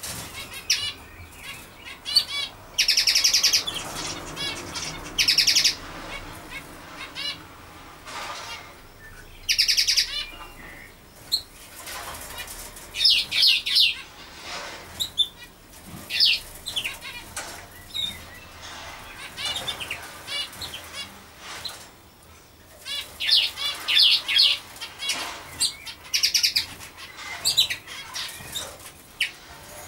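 Birds chirping and singing, in repeated bursts of quick high notes, some a second or so long, over a faint steady background hum.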